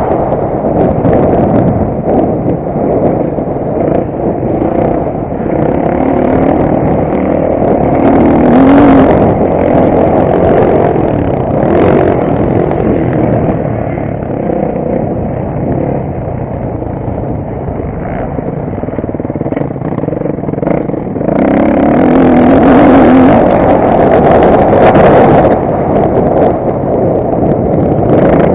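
Motocross bike engine running hard and revving, its pitch and loudness rising and falling, with louder surges about eight seconds in and again from about twenty-one to twenty-five seconds.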